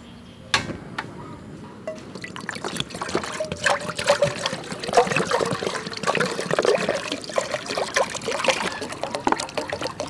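Water pouring and splashing from plastic bottles into a metal cooking pot, building over the first couple of seconds and then running on steadily. A single sharp knock comes just before the pouring starts.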